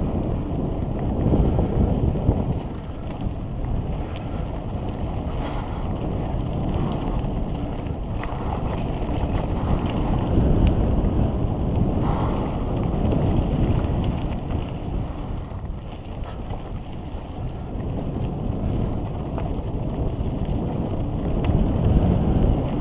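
Mountain bike descending a dry dirt trail at speed: tyres rumbling over the ground and wind rushing over the camera microphone, with brief clicks and knocks from the bike over bumps.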